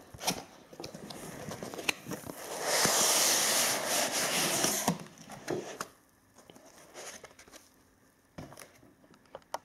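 Gemini Jets cardboard model box being opened: a steady scraping rustle of cardboard rubbing on cardboard for about two seconds, then a few light taps and knocks as the box is handled.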